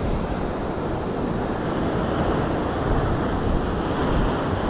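Rough sea surf washing and breaking against the rocky shore in a heavy swell: a steady, unbroken rushing.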